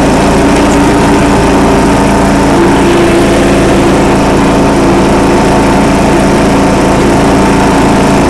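Loud, steady running of a John Deere L100 riding lawn tractor's 17-horsepower OHV engine while the tractor is driven across the grass.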